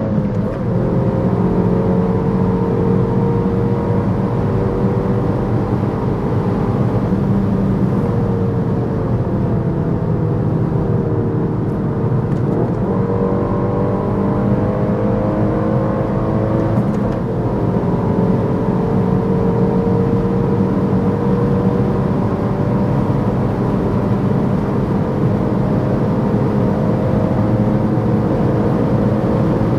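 Peugeot 308 GTi's turbocharged four-cylinder engine running hard at high autobahn speed, under steady road and wind noise. The engine pitch sags for a few seconds and then sweeps back up about twelve seconds in, with brief dips near the start and again later.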